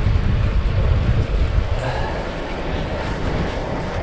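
Wind buffeting the microphone of a camera carried on a moving bicycle, a heavy low rumble with rushing noise that eases a little about halfway through.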